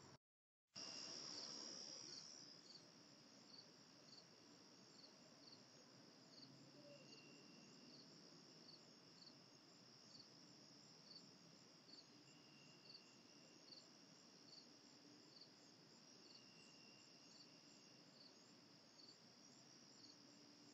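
Insects chirping: a steady high-pitched trill with short pulses repeating about twice a second.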